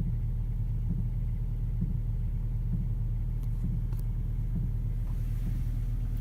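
Inside the cabin of a VW Touareg 3.0 V6 TDI diesel: a steady low drone with a soft, even pulse about once a second, like a heartbeat. It is a sporadic noise heard only in the interior and gone after a restart, whose cause is unknown; the owner wonders about the auxiliary heater.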